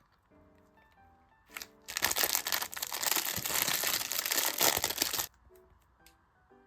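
Plastic packaging crinkling and rustling for about three seconds, loud and dense, starting about two seconds in and stopping abruptly. Quiet background music plays underneath.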